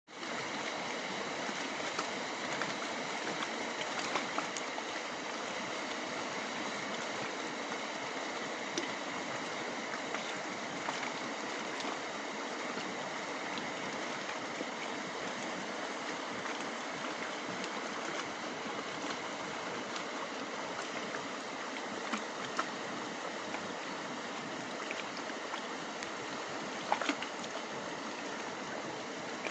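Steady rushing of flowing water, as of a stream, with a few light clicks now and then.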